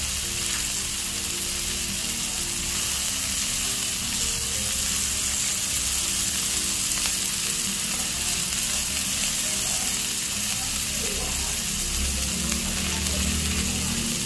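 Sirloin steak sizzling steadily as it sears in hot fat.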